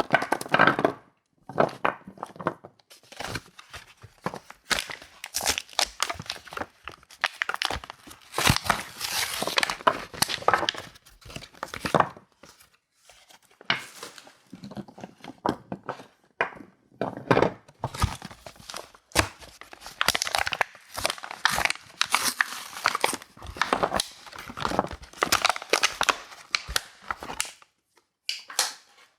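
Soap packaging being torn open and crumpled by hand: irregular crinkling and tearing of wrappers in bursts with short pauses.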